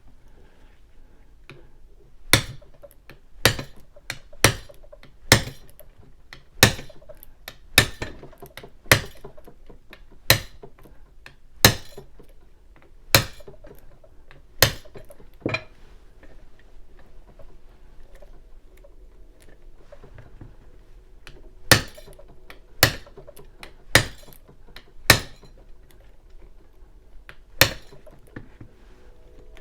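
A mallet tapping the head of a bump key seated in a small brass padlock: sharp, clinking strikes about one a second, a dozen in a row, then a pause and five more. These are bump attempts, and the lock does not open.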